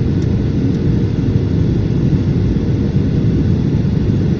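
Jet airliner cabin noise heard from inside the cabin during the descent to landing: a loud, steady low rumble of the engines and rushing air.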